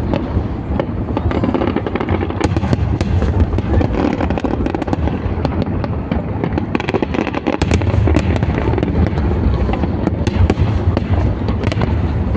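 Fireworks going off thick and fast: rapid bangs and crackling over a continuous low rumble of booms. The barrage eases briefly a little past halfway, then builds again.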